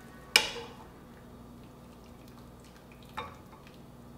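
Two clinks of a utensil against ceramic kitchenware, a loud ringing one near the start and a softer one about three seconds later, over a faint steady hum.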